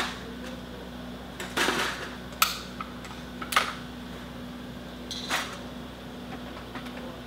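Metal clanks and a scraping rattle as the AGS-17 grenade launcher's steel drum magazine is lifted and fitted onto the launcher: about five separate knocks, with a longer scrape about a second and a half in.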